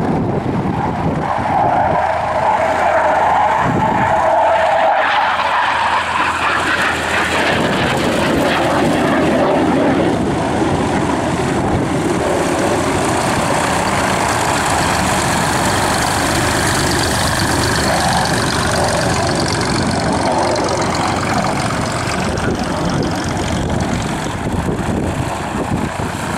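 Loud, continuous aircraft noise. For the first five seconds or so it carries the whine of a BAE Hawk 127 jet trainer on a display pass, then settles into a steady engine sound without the whine.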